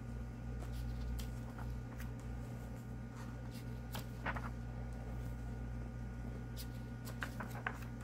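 Pages of a softcover guidebook being turned by hand: soft paper rustles with a brief flick about four seconds in and a few more near the end, over a steady low hum.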